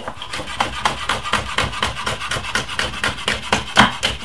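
Chef's knife chopping a red bell pepper on a wooden cutting board: a quick, even run of blade strikes on the wood, the loudest near the end.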